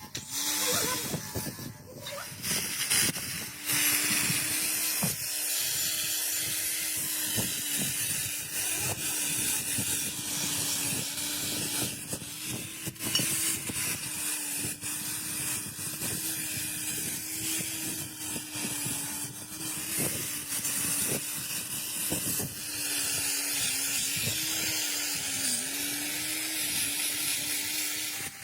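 Steady, loud hiss of a spray or blast tool, with a steady hum underneath that wavers a little near the end, and scattered clicks.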